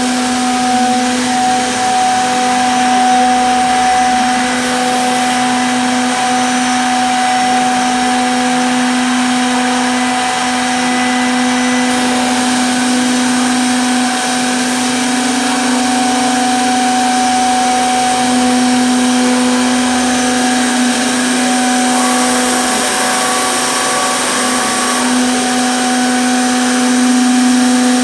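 Three-head CNC mortising machine running, its motors giving a steady, unbroken whine.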